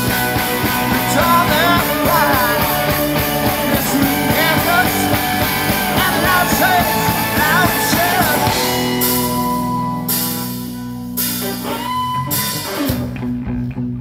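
A live rock band playing at full volume: electric guitars, bass guitar and drum kit between sung lines. About eight seconds in, the full band drops back to held, ringing chords and a few scattered hits, then picks up again near the end.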